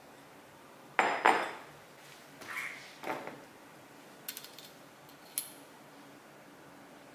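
Glass bowl and other kitchenware set down on a marble countertop: two heavy knocks about a second in, then a short scrape, another knock, a few light clinks and a sharp click.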